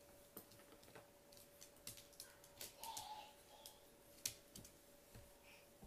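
Faint, irregular light clicks and taps from a small leashed dog moving on a tile floor, its claws and leash, with one sharper tap about four seconds in, over a faint steady hum.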